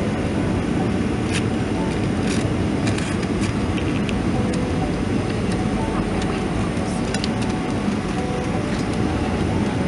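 Steady cabin roar inside a Boeing 737-400 on final approach: its CFM56 jet engines and the airflow over the airframe with flaps extended, heard from a seat behind the wing. A few faint clicks and rattles sit over the noise in the first few seconds.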